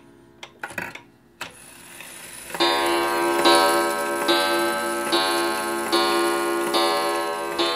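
Carolyn 31-day wall clock striking twelve on its coil gong: a ringing strike a little under once a second, starting a few seconds in after a few short clicks. The strikes come at an even, countable pace because the hammer has been bent back from the coil.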